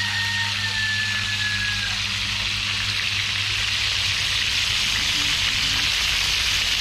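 Pigeon pieces frying in oil in a cast-iron skillet, a steady sizzle that grows a little louder as the pan is stirred. A low steady hum sits underneath and fades out about halfway.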